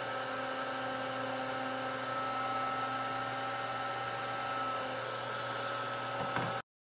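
Router spinning in a router table, a steady hum with a whine, stopping abruptly near the end.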